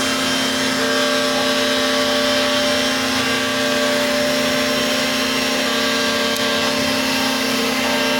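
Electric power sander running steadily on MDF, a constant motor hum with a high whine over a rushing noise.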